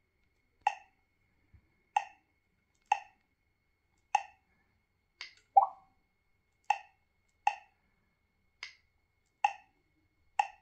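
A 7-inch GPS navigator's touch-screen key clicks sound as a finger taps through its menus: about ten short identical pops, roughly one a second. One near the middle is a little louder and longer.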